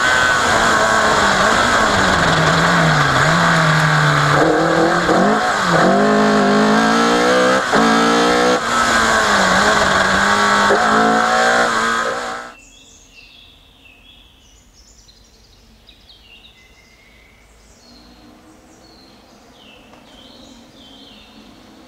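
Opel Kadett C Coupé rally car's engine revving hard under full throttle, its pitch climbing and dropping through gear changes, cutting off abruptly about twelve seconds in. After that, birds chirping in woodland, with a faint engine sound starting to build near the end.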